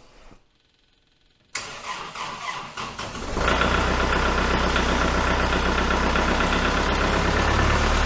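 Kubota L4701 tractor's four-cylinder diesel engine on a cold start: the starter cranks from about a second and a half in, the engine catches a couple of seconds later and settles into a steady idle.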